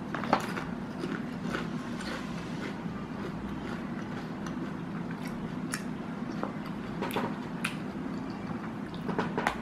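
Potato chips being crunched and chewed: scattered short, sharp crunches, some seconds apart, over a low steady hum.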